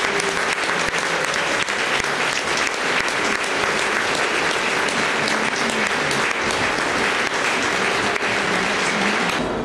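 Audience applauding: steady, dense clapping from a crowd of spectrators that breaks off abruptly near the end.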